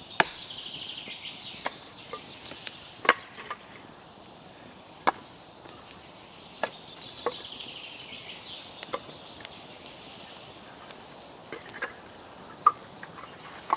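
Axe splitting firewood on a chopping block: sharp single strikes at irregular intervals, about a dozen in all, a few of them loud and the rest lighter taps.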